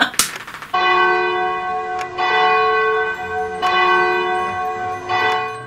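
A large bell sound effect tolling four times, about a second and a half apart, each stroke ringing on into the next. A short noisy burst comes just before the first stroke.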